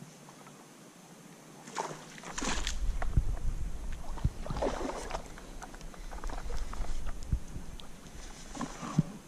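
Water sloshing and splashing with scattered knocks over a low rumble of movement close to the microphone, starting about two seconds in after a quiet stretch.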